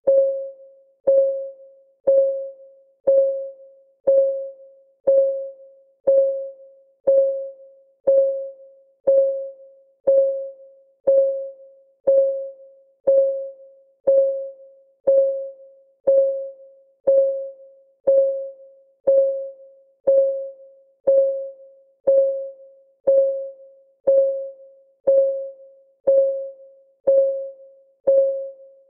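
Countdown timer's clock-ticking sound effect: one short tock with a clear, low note each second, steady and even, each tock dying away quickly.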